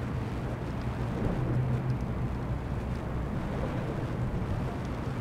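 Wind buffeting the microphone as a steady low rumble, with a low hum under it that swells briefly between one and two seconds in.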